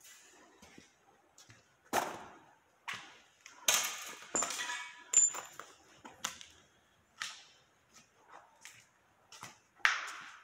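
Footsteps and scuffs on a gritty, debris-strewn concrete floor: irregular sharp knocks and crunches, busiest in the middle, with a short high metallic ping about five seconds in.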